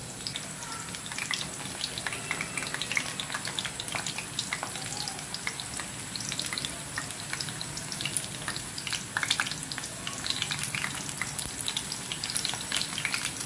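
Besan (gram-flour) pakoras deep-frying in hot oil in an aluminium pan: a steady sizzle full of small crackles and pops.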